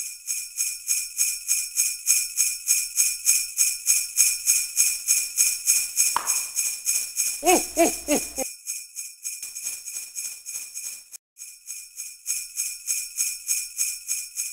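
Sleigh bells jingling in a steady shaking rhythm, about three or four shakes a second. Near the middle a short wavering lower-pitched sound joins in, and the bells cut out for a moment a few seconds later.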